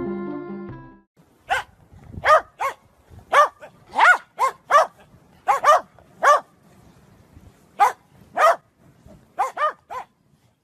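Corgi barking: about sixteen short, sharp barks in irregular runs, starting about a second and a half in and stopping near the end.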